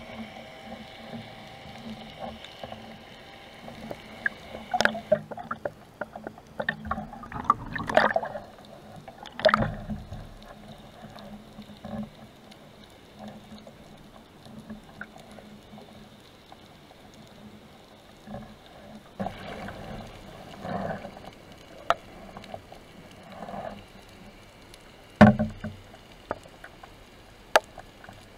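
Sound heard underwater through a camera housing: a steady hum from a distant engine carried through the water, fading out about halfway, over scattered sharp clicks and knocks from handling the speargun and spear shaft, the loudest knock near the end.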